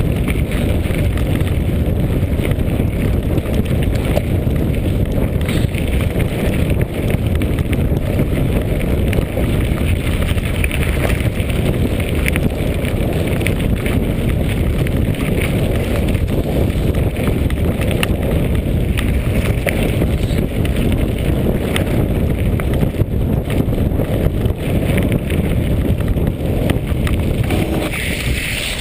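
Mountain bike ridden fast over a gravel track: steady wind rumble on the camera microphone with the tyres crunching and the bike rattling over loose stones. Near the end the bike splashes into a muddy puddle.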